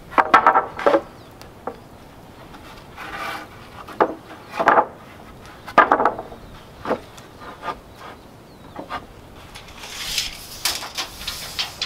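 Wooden planks being slid and knocked together as they are laid side by side on sawhorses, a few separate clusters of wooden knocks and scrapes. Near the end comes a lighter, higher run of scraping and ticking.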